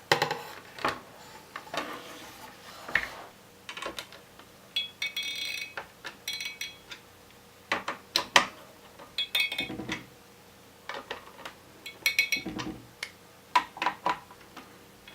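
Clicks, knocks and light metallic clinks of small computer parts being handled and fitted while reassembling an iMac's internals, irregular, with a few brief ringing clinks.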